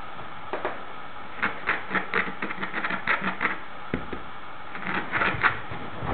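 A bull terrier puppy scrabbling about on a fabric sofa bed: rapid clusters of short clicks and scuffs, with a single dull thump about four seconds in.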